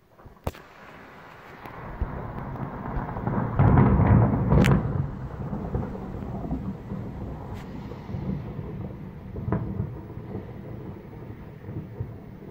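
A long roll of thunder: a low rumble builds over the first few seconds, peaks about four seconds in with a sharp crack, then rolls on and slowly fades.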